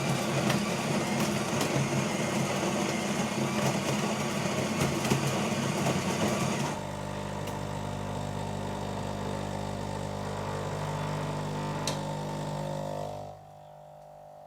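Coffee machine running: a rough rattling whir for about the first seven seconds, then a steadier, lower humming drone that drops much quieter about a second before the end.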